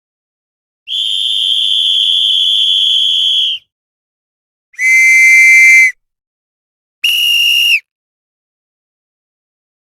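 Three separate blasts on a whistle, each a steady high-pitched tone that stops cleanly into silence: a long blast of nearly three seconds, a louder, slightly lower one of about a second, then a short one of under a second.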